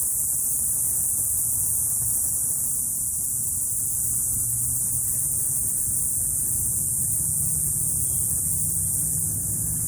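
Cicadas buzzing in a steady, continuous high-pitched drone, with a faint low hum beneath.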